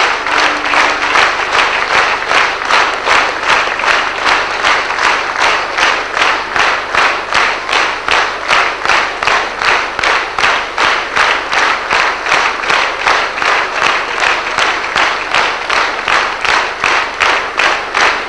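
A large audience clapping in unison, a steady rhythmic beat of a little over two claps a second. A held musical note stops about a second in.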